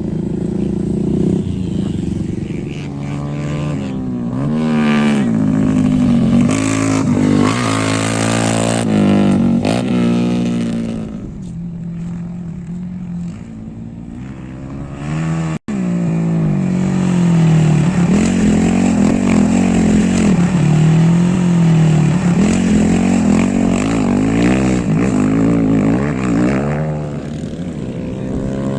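Off-road rally vehicle engines revving up and down over and over as they drive. There is a sudden break about halfway through, and the engine sound carries on after it.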